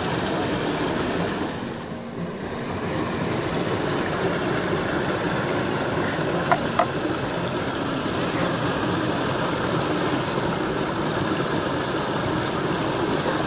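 Steady rush of a small waterfall cascading over rocks. About six and a half seconds in, two sharp knocks of a knife blade striking a wooden cutting board come a fraction of a second apart.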